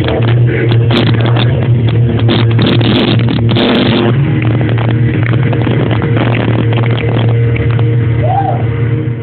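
Loud live rock band music: a heavy, steady, droning low end under distorted guitar, with a dense burst of noise about three to four seconds in.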